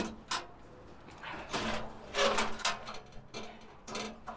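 Camp cooking kit being handled and set down: a run of short knocks, scrapes and rustles of metal cookware and gear, about one every half second to second.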